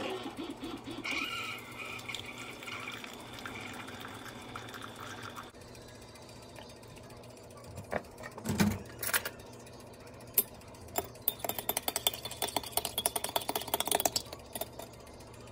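Keurig single-serve coffee maker brewing into a mug, a steady hum that stops about five and a half seconds in. After a few knocks, a metal spoon clinks quickly against the ceramic mug as the coffee is stirred.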